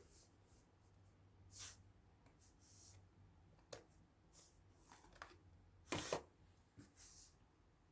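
Faint handling noises: scattered soft rustles and a few short, sharp clicks, the loudest a pair about six seconds in.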